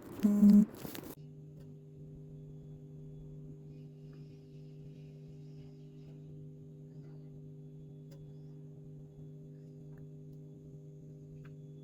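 A steady electrical hum of several held tones at a constant pitch. It follows a short, loud pitched sound in the first second.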